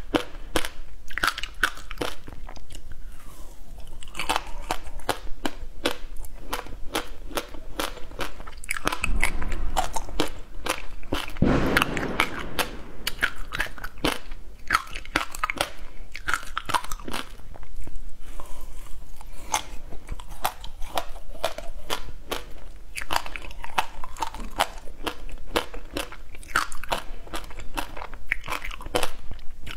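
Frozen passion fruit juice ice being bitten and crunched, a dense run of sharp cracks and chewing, with one heavier crunch near the middle.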